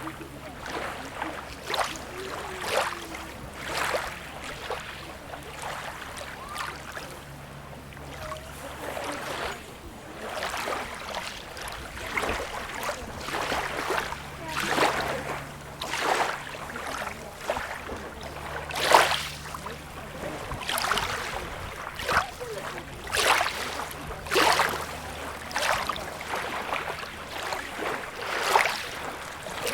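Small sea waves lapping and splashing at the shore, a splash every second or two, with a few louder ones about two-thirds of the way through.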